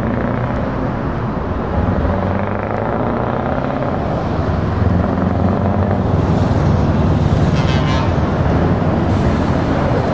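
Scania R560's V8 diesel engine pulling a tractor unit past at low speed, its note climbing a little as it pulls away.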